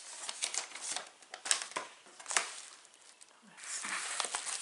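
Paper padded bubble mailer being handled, with irregular crinkling and sharp crackles; a short lull about three seconds in, then denser rustling.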